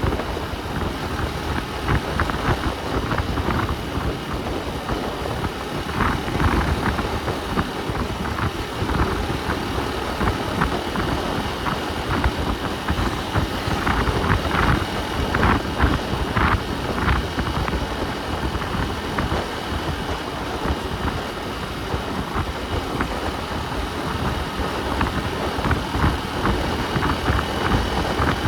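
A motor vehicle travelling on the road: continuous engine and road noise with uneven, gusting rumble at the low end.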